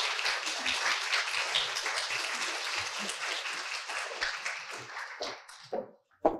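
Audience applauding, the clapping tapering off and dying away about five to six seconds in.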